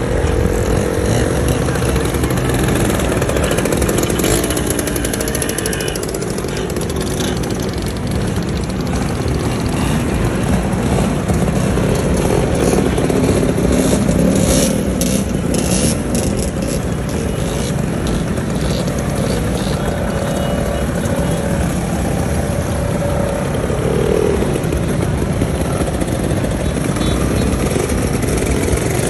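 Long procession of motor scooters, classic Vespas and Lambrettas among them, riding past one after another, their engines running with pitch rising and falling as each goes by.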